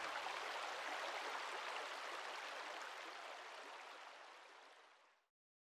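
River water running, a steady even rush that fades out gradually over about five seconds.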